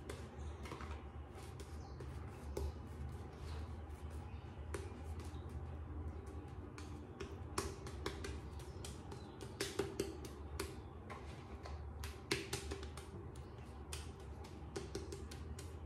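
Shaving brush being worked over a lathered face: the wet shaving-soap lather crackles with many small, irregular clicks over a low steady hum.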